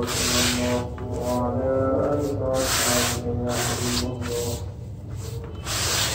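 Hands rubbing and crumbling dry red dirt powder against a plastic bucket: repeated gritty scraping strokes, with a quieter pause shortly before the end.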